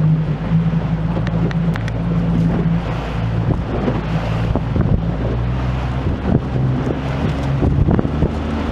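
Small fishing boat's engine running steadily while under way, with wind buffeting the microphone.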